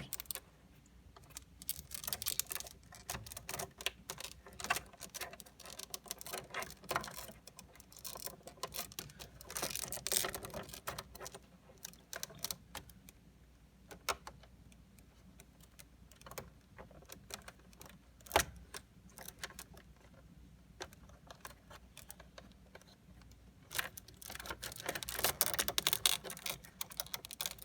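Scattered small clicks, taps and rattles of wiring harness plugs and cables being handled and pushed into their sockets in a pachislot slot machine, getting busier near the end.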